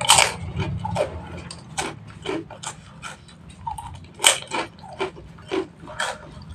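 Close-miked mouth sounds of eating instant noodles: irregular wet clicks, lip smacks and chewing, loudest at the start and again about four seconds in. Near the end a metal spoon goes back into the wok.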